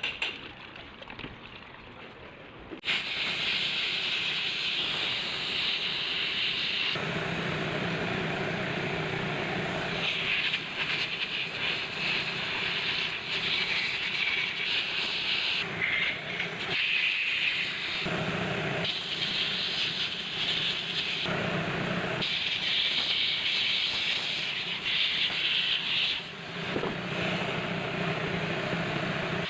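Compressed air hissing from a blow gun in long blasts, cleaning parts of a car A/C compressor. It starts about three seconds in, with short breaks and changes in strength.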